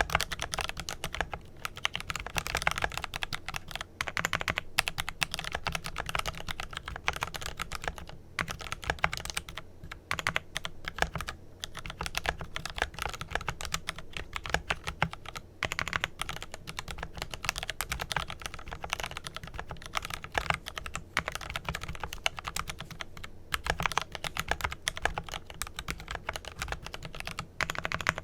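Fast continuous typing on a Glorious GMMK Pro mechanical keyboard with lubed Kailh Pro Purple tactile switches, a dense stream of keystrokes with short pauses every few seconds.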